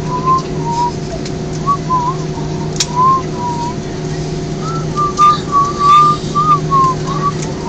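A person whistling a wandering tune in short gliding notes over the steady drone of an airliner taxiing; the notes rise higher and louder in the last few seconds.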